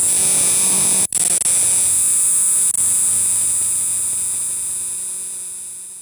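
Cricket singing a continuous shrill, high-pitched trill. It breaks off for an instant about a second in and fades out over the last few seconds.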